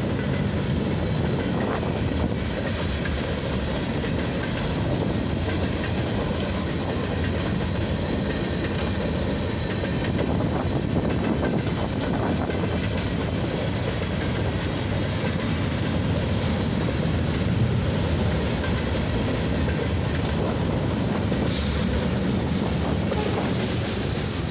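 Freight train cars rolling steadily past, their wheels running on the rails in a continuous, even noise.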